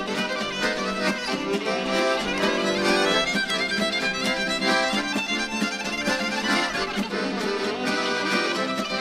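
Background music led by a fiddle or violin, with quick notes over a steady rhythmic accompaniment.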